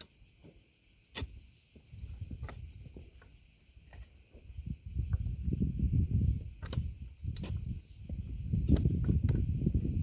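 Crickets chirping steadily in the background, with irregular low thuds and rustling and a few sharp clicks from close by.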